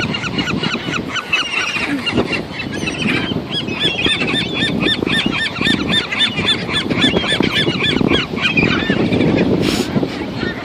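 A flock of seagulls calling over thrown popcorn, many quick short cries overlapping, thickest from about three to eight seconds in. A steady rushing noise runs underneath.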